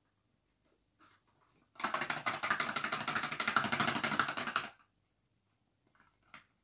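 A small pink container shaken fast like a rattle, making a quick run of clicks for about three seconds, starting about two seconds in.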